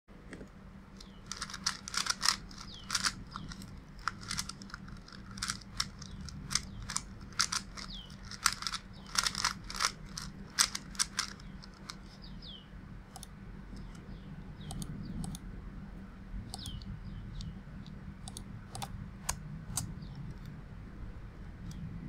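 Rubik's brand 3x3 cube, a stiff-turning 30th Anniversary edition, being turned by hand: a quick run of sharp plastic clacks as the layers snap round, loud and dense for the first ten seconds or so, then fainter and sparser.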